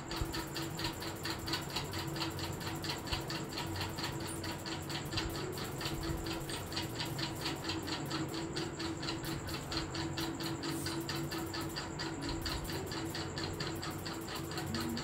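A fast, even ticking, about six ticks a second, over a steady low hum, with no break or change.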